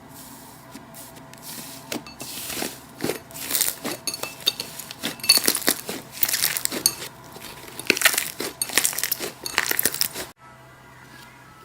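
Slime being squished and pressed by hand, giving dense crackling and popping clicks in irregular bursts that stop suddenly about ten seconds in.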